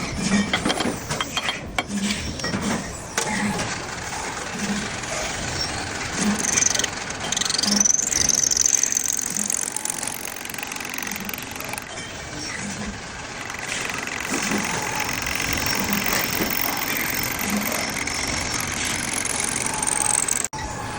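Metal lathe running while a tool cuts a spinning fitting: a steady machining noise with a low thud about every second and a half. A brief high squeal rises and falls about seven seconds in.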